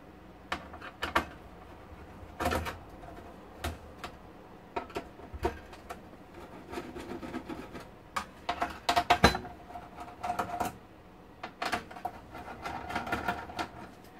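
Scattered clicks, knocks and light rattles of hands handling parts and wiring inside the opened metal chassis of an HP 5328A frequency counter during disassembly. A quick run of sharper clicks comes about nine seconds in.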